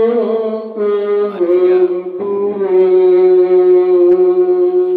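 Slow singing in long held notes that step down in pitch, over a steady low held tone.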